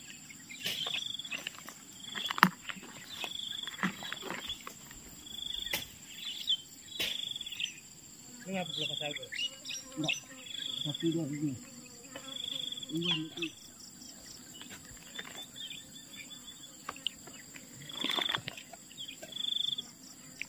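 A serving spoon clinking and scraping against plastic plates and a wok as coconut-milk fish curry is dished out, in sharp scattered clicks. Behind it an insect chirps in short, high notes, roughly once a second.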